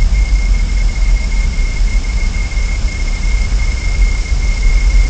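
Nest-camera microphone feed: a steady high-pitched electronic whine over a loud, fluctuating low rumble of wind on the microphone and a constant hiss.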